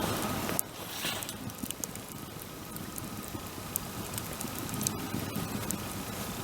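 Wood bonfire burning, a steady hiss with scattered sharp crackles and pops from the burning wood.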